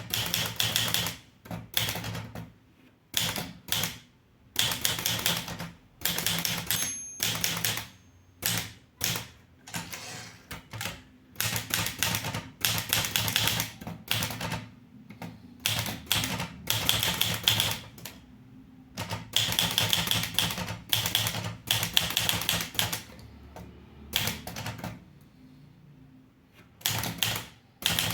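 Underwood 315 manual typewriter being typed on: rapid runs of sharp key strikes in bursts of a few seconds, broken by short pauses.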